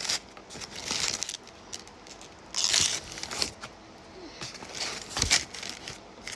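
Close-up eating sounds: Wingstop fries being handled and chewed, with paper food packaging crinkling in short irregular bursts and a soft thump about five seconds in.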